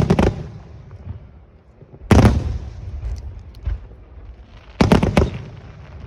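Aerial firework shells bursting in loud booms that die away with a rumbling echo: a double bang at the start, another about two seconds in, a smaller crack, then a quick cluster of three bangs around five seconds in.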